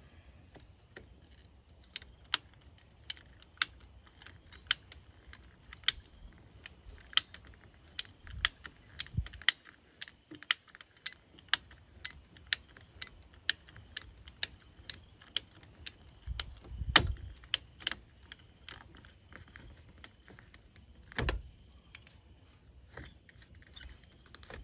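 Hand ratcheting pipe cutter working through a 2-inch plastic pipe: a steady run of sharp clicks about twice a second as the handle is squeezed, with a few duller knocks, the loudest about 17 seconds in.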